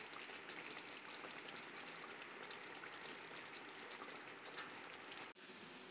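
Fish curry simmering in a pan, its gravy bubbling and sizzling with a steady crackle. It breaks off briefly about five seconds in.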